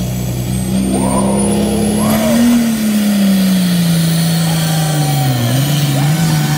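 Diesel pulling tractor's engine running hard under load as it drags a pulling sled. Its note climbs slightly, then sags and wavers in pitch in the last second or two. A faint high whistle rises over the first two seconds.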